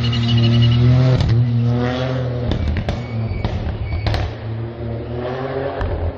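Rally car engine accelerating hard past at close range, its note climbing and dropping back at upshifts about one and two seconds in, with a few sharp cracks. The engine rises again near the end as the car drives off.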